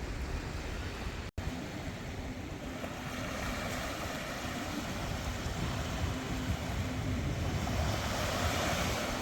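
Sea surf washing onto the beach with wind buffeting the microphone. The sound cuts out for an instant about a second in, and the surf swells louder near the end as a wave breaks.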